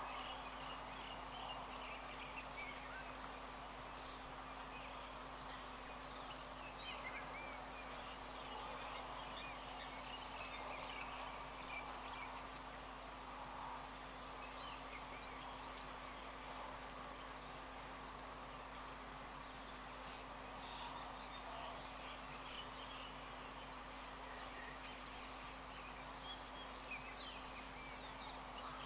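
Faint chorus of small birds chirping, many short scattered calls throughout, over a steady low hum.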